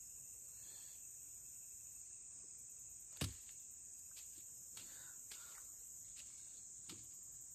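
Steady high-pitched chirring of insects such as crickets. About three seconds in there is one sharp click, followed by a few fainter ticks.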